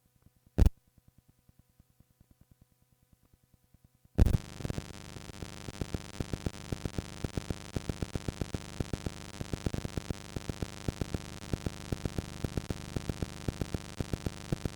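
Cassette tape playback: a single click, then about four seconds in a thump and a steady tape hiss with hum, with sharp regular ticks about four or five a second, cutting off suddenly at the end.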